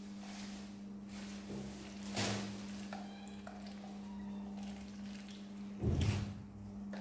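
Ducklings cheeping faintly over a steady low hum, with a soft thump about two seconds in and a louder one near the end.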